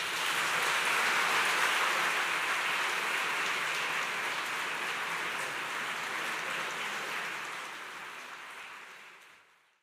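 Audience applauding, a steady wash of clapping that dies away near the end.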